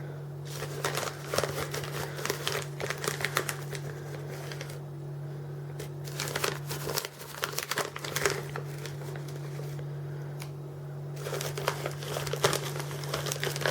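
Crinkling and rustling of a packet being handled while mustard powder is measured out by the spoonful, in three spells with short pauses between them.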